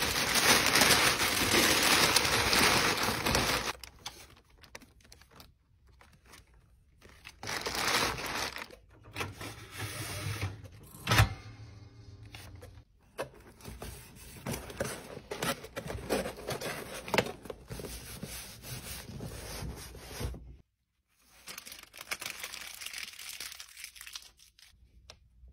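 Tissue paper crinkling as it is folded over in a box. A gummed-tape dispenser feeds out a strip of paper tape and cuts it with a single sharp click, followed by hands rubbing the paper tape down onto a cardboard box.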